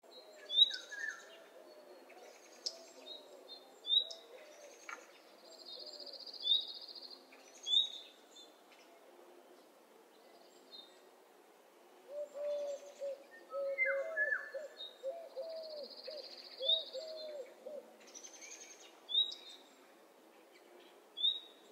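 A morning birdsong recording with several birds calling: short, sharp high chirps repeat every second or two, with two buzzy high trills. A run of lower, wavering calls comes about halfway through.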